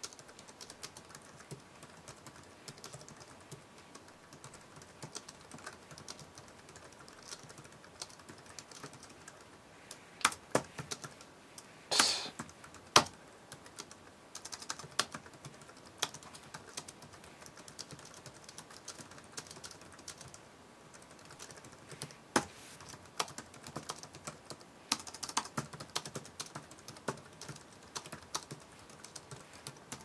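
Typing on a Kensington Slim Type (K72357USA) scissor-switch keyboard: a quick, continuous run of quiet, light keystrokes, with a few sharper, louder key strikes about a third of the way in.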